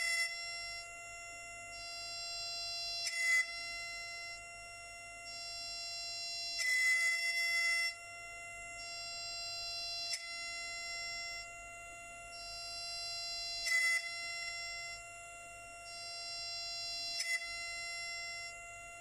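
SycoTec KaVo high-speed milling spindle whining steadily as its end mill takes a cleanup pass across an aluminum block. The cutting sound rises and falls in a cycle of about three and a half seconds, with a brief louder spike at the peak of each cycle.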